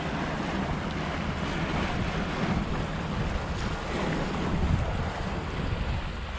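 Wind buffeting the microphone and water rushing along the hull of a sailing yacht under way, a steady rushing noise with no clear separate events.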